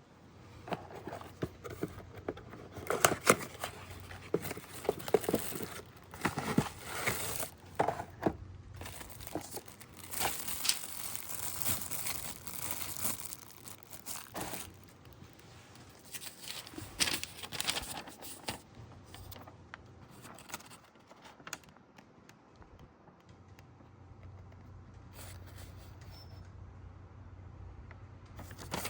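Plastic clicking, rustling and scraping as the cabin air filter's clips are worked loose by feel and the filter is pulled out from its housing behind the dashboard. The handling noise is busiest for the first twenty seconds or so, then fades to near quiet.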